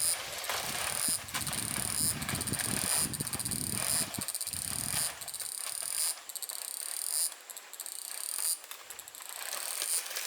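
Insects calling in a high, rapid, buzzing trill, repeated in phrases of about a second. Low rustling and a few knocks sound under it in the first half.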